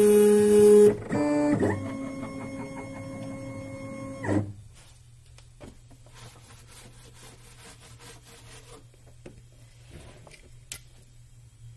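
Carbide 3D Nomad 883 Pro desktop CNC mill's stepper motors whining as the axes move, in steady tones that step in pitch and then hold before stopping abruptly about four seconds in. After that comes faint rubbing of a cloth wiping the spoilboard, and a single click near the end.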